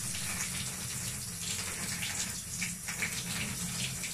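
Water running steadily from a tap into a bathtub.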